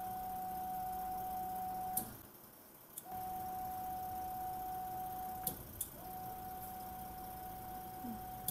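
Print head lift motor of a single-pass packaging printer running with a steady whine in three spells, cutting out twice for a second or less. Sharp clicks mark each stop and start as the up and down buttons are pressed and released.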